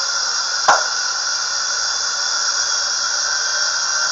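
A thrown screwdriver strikes the target board once, a sharp knock a little under a second in, over a steady high-pitched hiss and whine.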